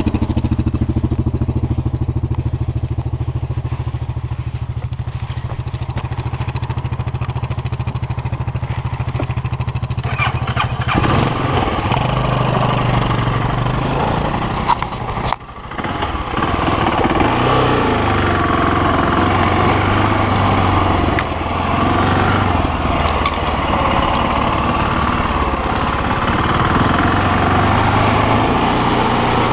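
BMW G650X Challenge single-cylinder motorcycle engine idling steadily, then revving up about eleven seconds in as the bike pulls away and rides on, the engine note rising and falling with the throttle. The sound drops off briefly once, a little past the middle.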